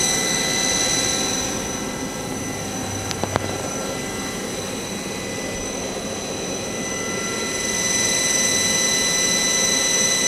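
Main spindle of a Star SV-32J CNC Swiss-type lathe running steadily at 3,000 RPM, giving a steady high whine. A couple of faint clicks come about three seconds in.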